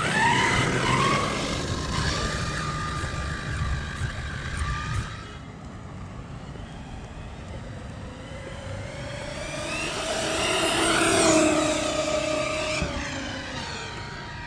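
Eachine EAT02 1/8-scale brushless RC monster truck at full throttle on asphalt. Its electric motor whine rises sharply at the start, holds for about five seconds and drops away, then a second whine rises and falls, loudest about eleven seconds in.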